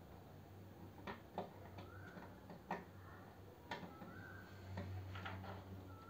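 Faint plastic clicks and taps from a 3D printer's LCD ribbon-cable connector being handled and fitted at the mainboard, a few scattered clicks with the sharpest about a second and a half in and near the middle. A short rising chirp recurs about every two seconds over a low steady hum.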